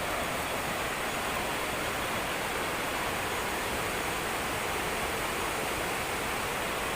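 Waterfall pouring steadily: a constant even rush of falling water.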